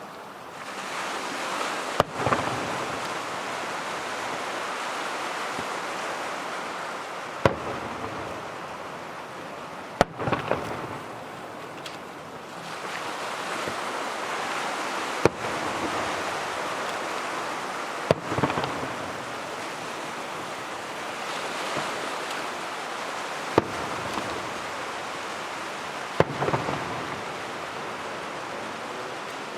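Fireworks display: aerial shells bursting with seven sharp bangs a few seconds apart, several followed by brief crackling, over a steady rushing noise.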